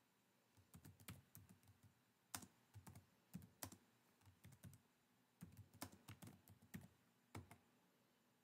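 Faint typing on a computer keyboard: irregular keystrokes, a few at a time with short pauses between.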